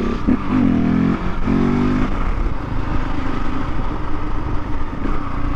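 Husqvarna 701's single-cylinder four-stroke engine through an Akrapovic slip-on exhaust, blipped up in revs twice in the first two seconds, then idling steadily.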